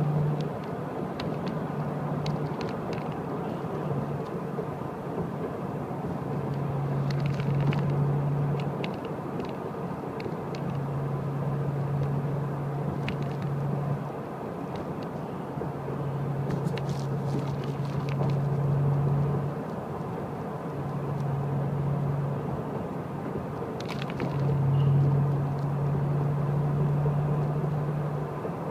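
Car driving along a road, with steady road and engine noise. A low hum comes and goes in stretches of a few seconds.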